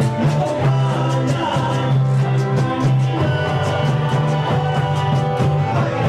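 Live band music with a steady beat: a strong bass line, rhythmic percussion and melodic instruments playing together.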